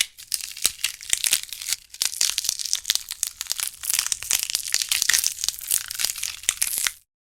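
A crumpling, crackling sound effect: a dense, uneven run of small sharp snaps and crinkles that starts abruptly and cuts off suddenly near the end.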